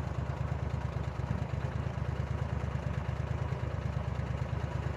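Tour boat's engine running steadily while the boat moves along: a low, even hum with a fast regular beat.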